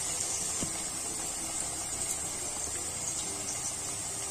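Steady sizzling of potato wedges coated in samak rice flour deep-frying in hot oil in a kadhai.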